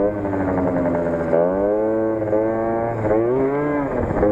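Keeway Hurricane scooter's tuned two-stroke engine, with a Stage6 Streetrace cylinder kit and Leo Vince ZX exhaust, revving up and down. The pitch sags at first, climbs about a second and a half in, then rises and drops again near the end.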